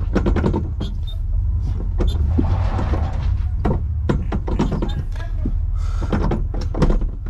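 Inside the cabin of a 1970 Volkswagen Beetle rolling under tow: a steady low rumble with frequent clunks and rattles from the old car's body and running gear.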